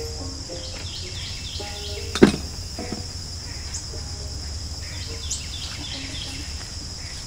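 Steady high trilling of insects, with one sharp knock about two seconds in and a couple of faint, quick bird chirps.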